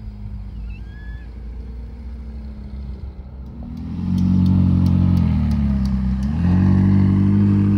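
McLaren convertible supercar's twin-turbo V8 pulling away under throttle, loud after a quieter engine hum in the first few seconds; the engine note drops briefly about six seconds in, as at a gear change, then climbs again. A few sharp clicks come just as it gets loud.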